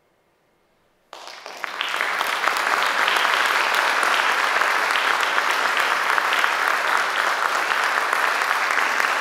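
Concert audience applauding: after a second of near silence the clapping breaks out suddenly and swells within about a second and a half to a steady, dense level.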